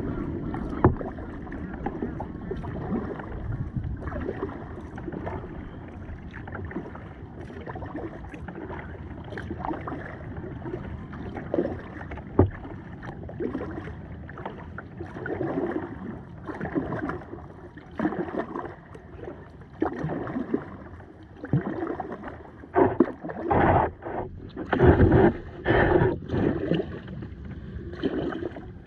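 Kayak paddling: the paddle blades dip and splash in the river at a steady stroke rate of about one a second, over a continuous wash of water. Several louder strokes come near the end.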